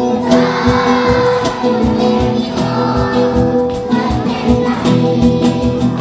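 Acoustic guitar strumming a bambuco accompaniment, with a group of schoolgirls singing along.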